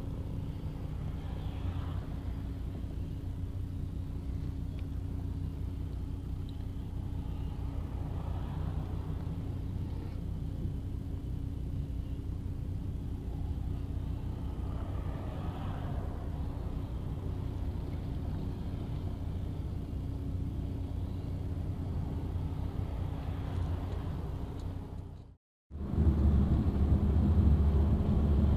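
Steady road and engine rumble of a moving vehicle heard from inside its cabin, with a constant low drone. It breaks off for a moment about 25 seconds in and comes back louder.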